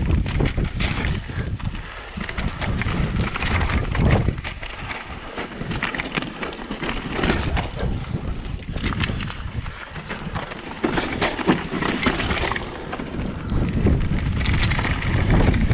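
Mountain bike descending a rocky trail over loose slate: wind buffeting the microphone, with the constant clatter and crunch of tyres and frame over rocks and scree.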